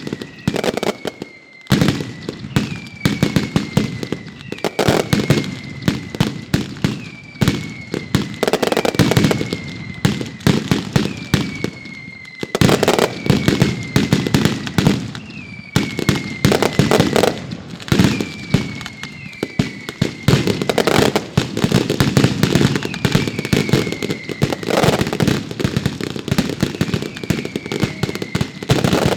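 Professional fireworks display: a dense, continuous run of sharp bangs and crackling shell bursts, with a short falling whistle tone recurring about every two seconds.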